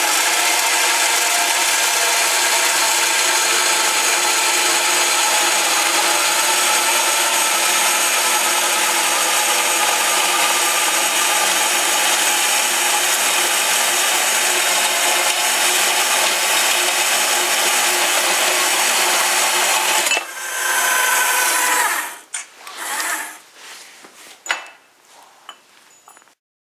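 A 5-inch (125 mm) portable band saw running steadily, its blade sawing. About 20 seconds in it dips and picks up again, then from about 22 seconds it cuts in and out in short spurts and dies away.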